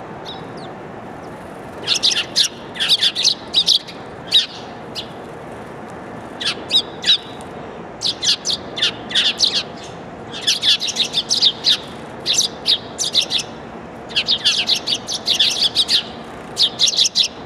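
Eurasian tree sparrows chirping in quick runs of short, high chirps, several birds at once, in bouts with brief pauses, starting about two seconds in, over a steady faint background hum.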